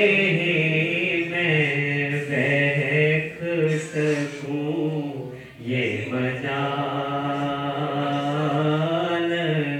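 A man reciting a naat, drawing out long wavering melismatic notes on the vowels. The line breaks off about five and a half seconds in, and a new long held note follows.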